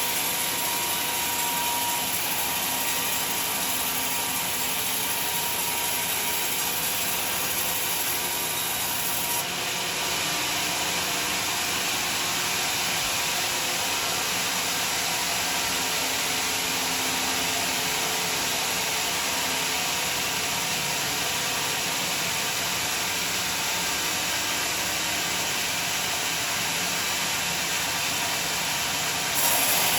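Sawmill saw cutting through a large log, a steady, hissing noise of blade in wood. The sound changes abruptly about a third of the way in and gets louder just before the end.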